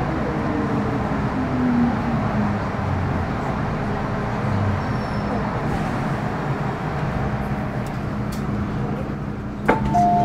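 Metro-Cammell M-Train EMU running in tunnel, heard from inside the car: steady wheel and running rumble with a steady hum, and the GEC GTO chopper's whine falling in pitch over the first couple of seconds. Near the end, a sharp click and then a two-note chime.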